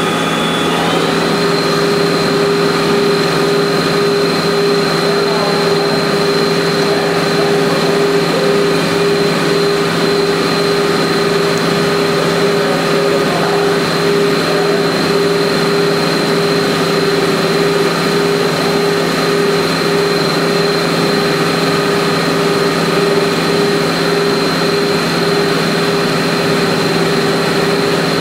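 CNC lathe turning solid brass stock into a 1/2" smooth-bore fountain jet: a steady machine whine with several held tones. About a second in the whine steps up in pitch, then holds.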